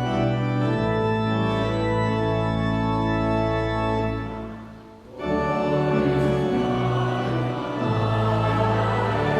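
Church organ playing sustained chords; the sound dies away about four and a half seconds in and the organ starts again a moment later.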